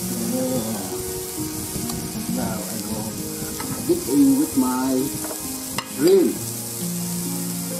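Shrimp sizzling on an electric indoor grill plate, a steady frying hiss, over background music. A couple of short louder pitched sounds stand out about four and six seconds in.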